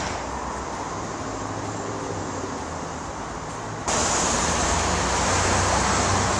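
Steady street traffic noise. About four seconds in, it abruptly gets louder, with the low rumble of a large Chevrolet SUV's engine as it pulls up to the curb.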